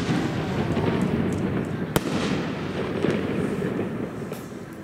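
Aerial fireworks bursting, with one sharp bang about two seconds in over a dense rumble of explosions that dies away near the end.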